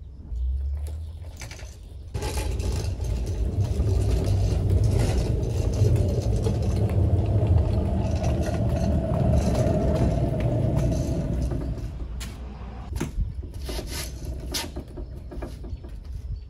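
Steel car-wheel skates' caster wheels rolling under a car pushed by hand over rough blacktop: a loud rumbling roll starts about two seconds in and lasts about ten seconds, then gives way to scattered clicks and knocks as the car slows.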